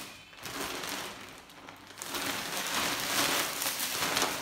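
Clear plastic packaging bags crinkling and rustling as they are handled, quieter at first and louder and denser from about two seconds in.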